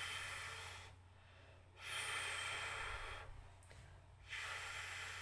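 A person's voice sounding the letter F as its phonic sound, a long breathy "ffff" hiss, three times: the first is already under way and ends about a second in, the next two follow about two and four seconds in.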